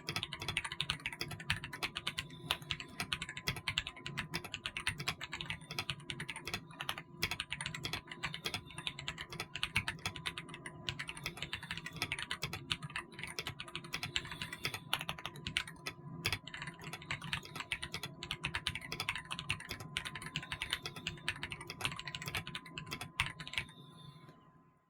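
Ajazz AK820 wired mechanical keyboard with Moon switches being typed on fast and continuously, a dense run of key clacks that stops about a second before the end.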